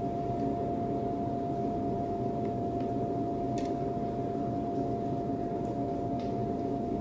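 Steady hum of a kitchen ventilation fan with a constant whine in it, with a few faint ticks from the pastry being handled.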